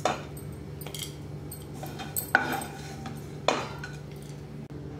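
Spatula scraping and knocking against a nonstick frying pan and a plastic bowl while stir-fried drumstick leaves are scooped out, with three sharp knocks: one at the start, one just past two seconds and one about three and a half seconds in. A steady low hum runs underneath.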